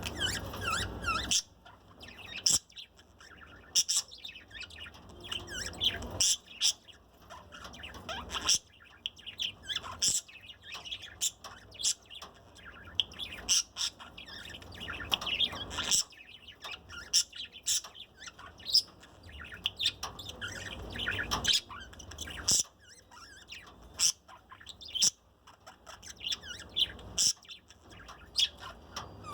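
Budgerigar chirping and chattering: a run of short, sharp, high calls and squawks at irregular intervals.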